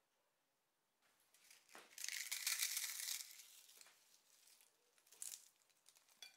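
Crisp fried papdi crushed by hand: a dense crackling crunch about two seconds in, then a few lighter crackles as the broken pieces are crumbled over the plate.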